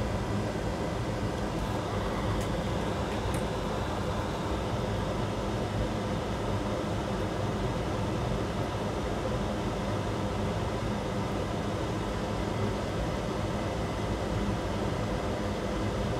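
Steady fan hum and hiss of the workshop's background, with a low steady drone and a few faint ticks about two and three seconds in.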